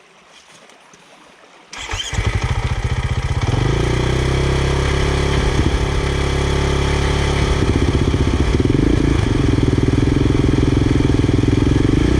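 Motorcycle engine on a drowned bike that starts abruptly about two seconds in. It runs unevenly for a moment, then settles into steady running.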